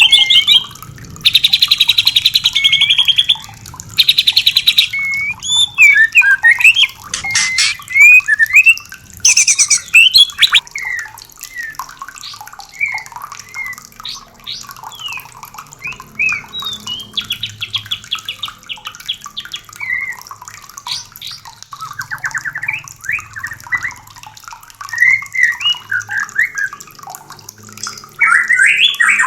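White-rumped shamas calling and singing: several harsh, fast rattling calls in the first ten seconds or so, then a run of varied, short whistled notes and phrases.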